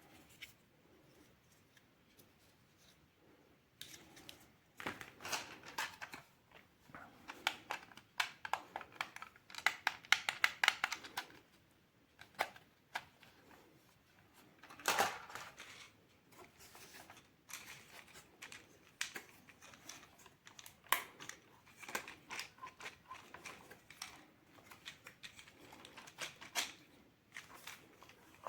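Toy packaging being handled and opened by hand: irregular rustling, crinkling and sharp clicks in clusters, starting about four seconds in.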